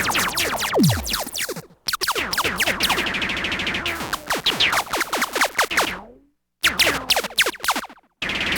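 Sci-fi laser blaster fire in a space battle: a dense barrage of overlapping quick pitch-falling zaps. It breaks off into brief silences about two seconds in, at about six seconds and again near the end.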